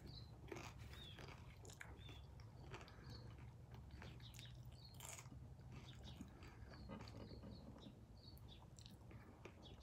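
Faint chewing of a crunchy tostada shell, with scattered soft crunches and mouth clicks, over a low steady hum.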